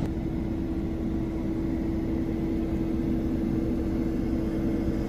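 Farm tractor engine running steadily, a constant low rumble with a steady hum tone.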